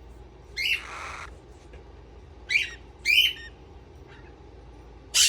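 Pet parrots giving four short, sharp squawking calls, the first a longer, rougher screech.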